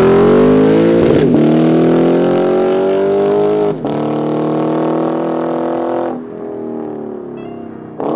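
Straight-piped Lexus RC F 5.0-litre V8 accelerating at full throttle from a launch, its pitch climbing. It drops at upshifts about a second in and again near four seconds, then the sound falls away from about six seconds in as the car pulls into the distance.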